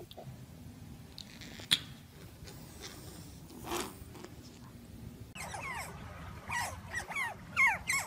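Otters chirping: a rapid run of high, downward-sliding squeaks starting about five seconds in. Before that there is low room noise with one sharp click.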